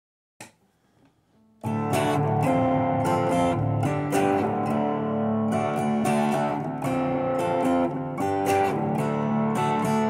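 Epiphone Dot semi-hollow electric guitar strummed with a pick, playing chords that ring on between the strokes. The playing starts about a second and a half in, after a short click.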